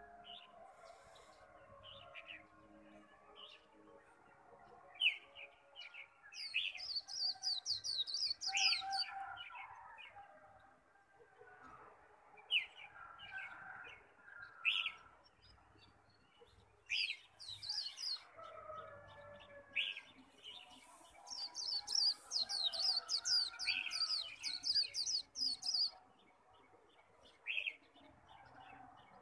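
White-eye (chim khuyên) singing its fast 'líu' song: two long runs of rapid, very high twittering, the second one longer, with short single chirps scattered between them.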